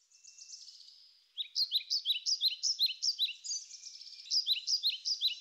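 Birds chirping: quick, high, downward-sweeping chirps repeated several times a second, faint at first and louder from about a second and a half in.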